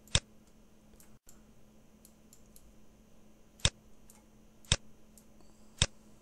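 Computer mouse clicking: four sharp clicks spread unevenly, with a few fainter ticks between them.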